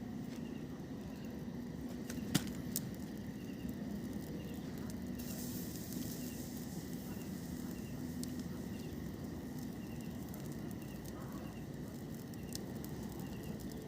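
Campfire burning steadily, with a couple of sharp crackles about two and a half seconds in.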